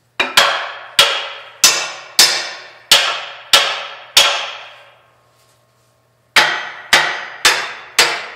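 Hammer blows on a Model A Ford front axle held under load in a hydraulic press, each blow ringing metallically, struck to shock a stuck part loose. About seven hard blows come roughly every two-thirds of a second, then a pause of about two seconds, then four more.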